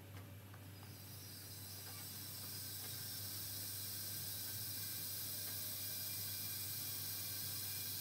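Water heating in the kettles: a hiss that starts about a second in and grows steadily louder as the water nears the boil.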